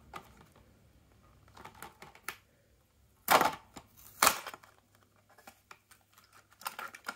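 A toy-car blister pack being opened by hand: the clear plastic blister crackling and the cardboard backing tearing, with two loud rips about three and four seconds in among quieter clicks and rustles.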